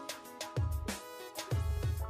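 Background music with a beat: deep bass hits under sustained melodic tones.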